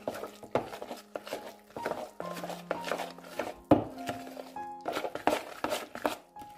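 Background music of held notes, over a hand mixing a wet, sticky egg and gram-flour batter in a plastic bowl: irregular soft clicks, slaps and knocks of fingers and dough against the bowl, the sharpest knock about halfway through.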